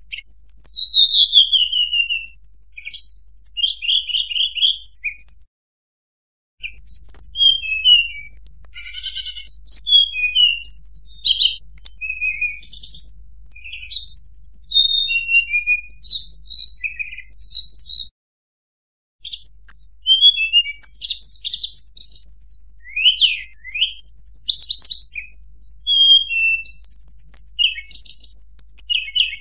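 Hill blue flycatcher (tledekan gunung) song, played as a lure-call recording: quick, varied phrases of high chirps, trills and falling slurs, broken twice by a second or so of silence.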